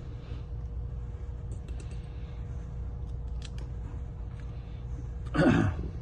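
Light, sparse clicks of small repair tools on a smartphone's parts during disassembly, over a steady low hum. A brief voice sound comes near the end.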